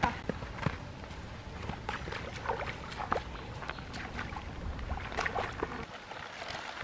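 Shallow muddy pond water splashing and sloshing in short, irregular bursts as people wade in and reach into it by hand after crabs.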